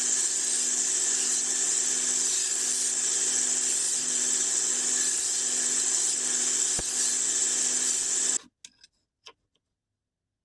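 A small electric motor running steadily with a high hiss and a constant hum, then cut off abruptly about eight seconds in, followed by a couple of faint clicks.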